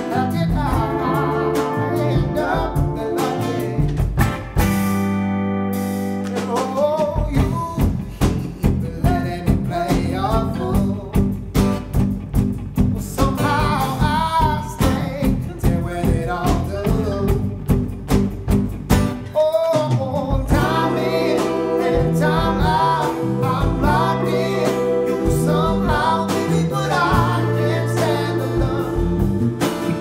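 Live band playing a song on acoustic guitar, electric bass and drums, with a singing voice. A chord is held about four seconds in, then a steady drumbeat comes in and carries the song on.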